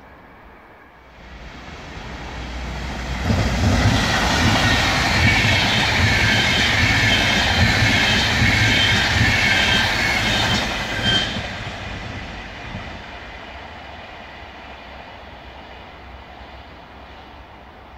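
VR InterCity double-deck electric passenger train passing at speed. A low rumble with a high whine builds over a couple of seconds and holds loud for about eight seconds. It then drops off sharply and fades as the train moves away.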